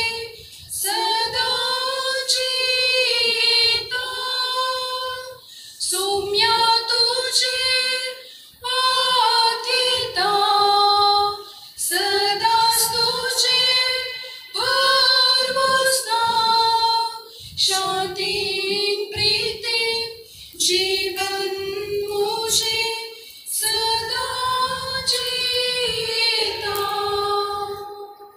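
Group of women's voices singing a Konkani hymn together, in phrases of two to three seconds with short breaks between them; the singing ends near the end.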